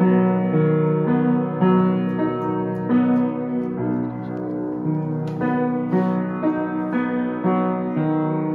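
A roughly 200-year-old Pleyel upright piano being played: a continuous run of notes struck about once or twice a second over a repeating low accompaniment. The old piano is tuned about a half step below modern pitch.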